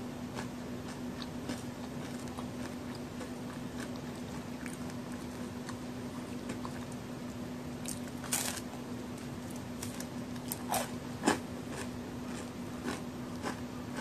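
Biting and chewing a large, crisp homemade chocolate-and-raisin cookie: small chewing clicks, a loud crunch a little past halfway and two more crunches a few seconds later, the last the loudest. A steady low hum runs underneath.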